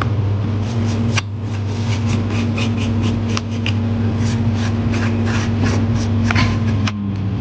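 A steady low mechanical hum with a held tone, and many light irregular clicks and taps over it.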